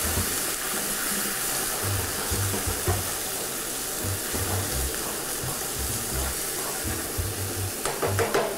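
Rabbit pieces and white wine sizzling steadily in a hot frying pan as the wine reduces, stirred with a metal spoon, with a few clicks of the spoon against the pan near the end.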